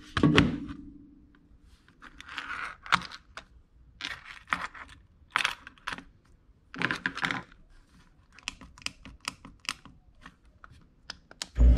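Plastic key-fob remotes and their metal keyring clasps being handled and set down on a bench: a heavier knock at the start, then a string of light clicks, taps and rustles. Right at the end a loud thump leads into a steady loud noise.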